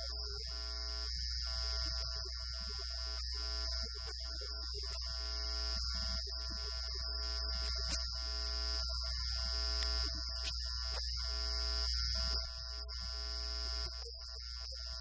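Steady electrical hum and buzz on the recording, with a constant high whine and choppy fragments that cut in and out, and one short sharp blip about halfway through.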